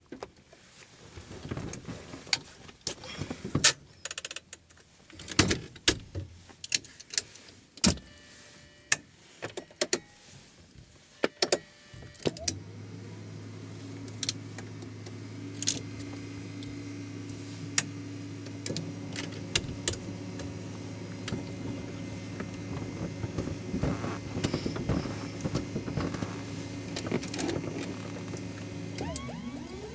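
Cockpit switches clicking one after another on a Beechcraft King Air 90's panel. About twelve seconds in, a steady electrical hum comes on as the aircraft's systems are powered up. Near the end a rising whine begins as the starter spins up one of the turboprop engines.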